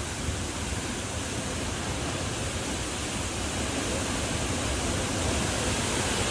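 Steady rushing of a large waterfall, the continuous roar of water falling down the cliff, growing slightly louder toward the end.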